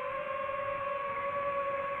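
DJI FPV drone's motors and propellers whining at a steady high pitch, dipping slightly about a second in as the throttle eases, then holding.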